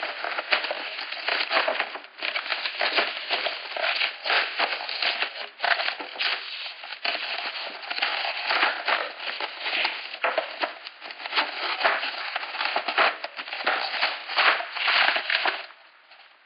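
Plastic packaging and small plastic toy parts crinkling, crackling and rattling in the hands as a toy playset is unpacked, with a dense run of irregular clicks that eases off near the end.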